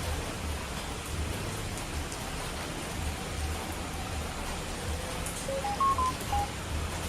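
Steady hiss of falling water, as of heavy rain, over an uneven low rumble. Nearly six seconds in comes a quick run of five short beeping tones that step up and then down in pitch.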